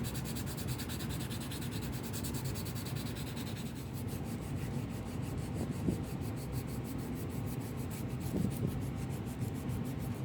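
320-grit sandpaper rubbed in quick, even back-and-forth strokes over a plastic saw handle.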